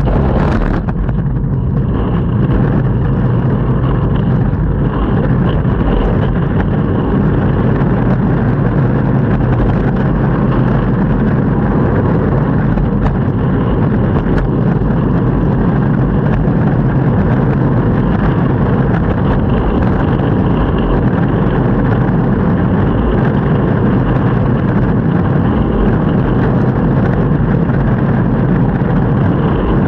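Longboard wheels rolling steadily over street pavement: a continuous loud rumble with a faint, steady high tone above it.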